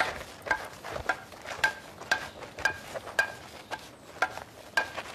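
Wooden sticks clacking together in a mock sword fight: about nine sharp strikes, roughly two a second, each with a short ring.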